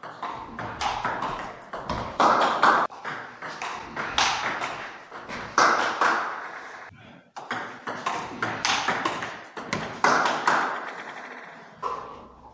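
Table tennis rally: the ball clicks back and forth off the paddles and the table in a quick, uneven rhythm, with a short break about seven seconds in.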